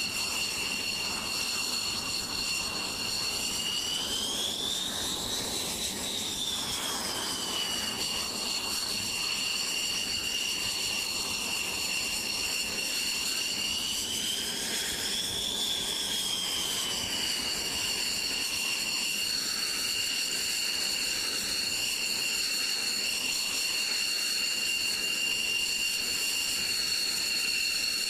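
Northrop Grumman X-47B's turbofan engine running at low power, a steady high whine over a rushing hiss. The whine rises in pitch twice, about five and fifteen seconds in, and falls back each time.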